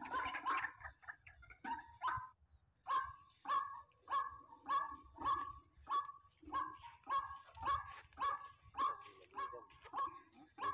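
Rail calls, a short sharp note repeated steadily about one and a half to two times a second.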